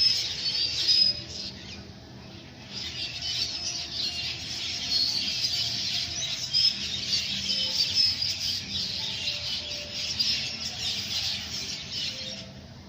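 A flock of birds calling together: a dense chatter of many short, overlapping high-pitched calls. It thins briefly about two seconds in, then picks up again.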